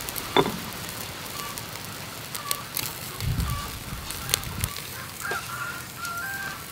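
Chicken feet grilling over charcoal, the fat crackling with scattered sharp pops over a steady faint hiss. Faint short bird chirps are heard in the background.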